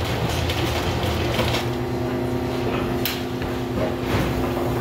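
Room noise with a low rumble and a steady electric hum that comes in about a second in, broken by a couple of short, sharp clicks, one about three seconds in.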